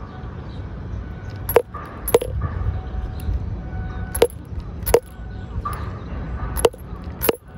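Rubber mallet knocking on the granite top of Tsutsumi-iwa, the 'Ponpon rock' said to answer a strike with a 'pon' like a tsuzumi drum: six knocks in three pairs, each with a brief ring. The drum-like note comes through only weakly, 'bimyō' (so-so).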